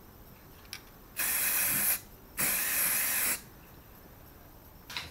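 Aerosol can of yellow enamel spray paint giving two short sprays about half a second apart, each lasting under a second, as two strokes marking a cross on a Mini body panel. A small click comes before the first spray and another near the end.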